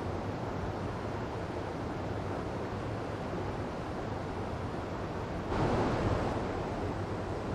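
Waterfall water rushing steadily, with a louder surge about five and a half seconds in that eases off again over a second or two.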